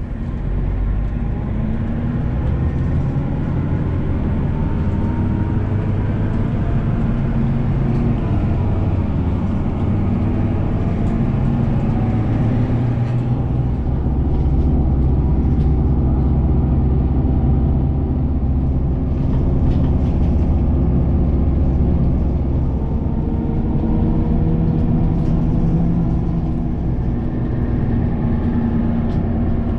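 City bus engine and road noise heard from inside the passenger cabin while the bus is driving, a steady low rumble with the engine's pitch rising and falling as it speeds up and slows.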